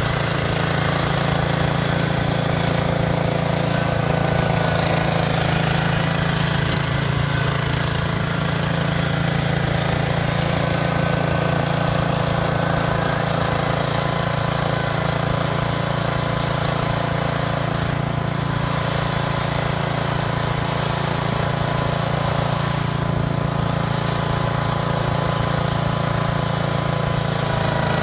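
Small engine of a vintage John Deere garden tractor running steadily at an even speed while it pushes snow with its front blade.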